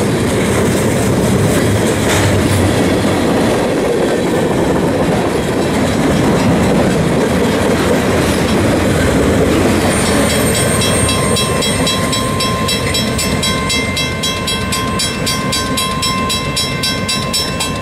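Freight cars rolling past close by, a steady noise of wheels on rail. From about halfway through, as the last cars go by, a grade-crossing bell ringing rapidly comes through over the train.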